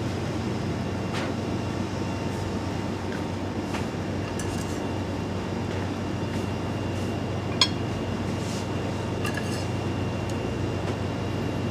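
Steady restaurant room noise with a low hum, a few faint clinks of dishes and cutlery, and one sharper clink about seven and a half seconds in.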